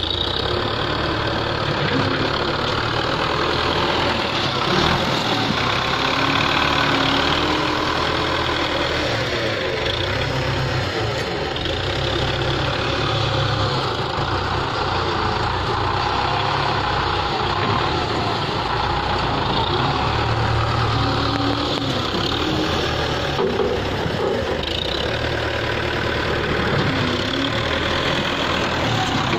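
Belarus 510 tractor's diesel engine running steadily while its front loader digs into a manure heap, lifts the bucket and dumps it into a trolley.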